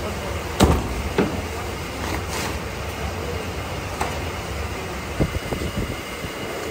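Steady workshop background hum and hiss, broken by a few short sharp knocks, the first about half a second in and another about four seconds in.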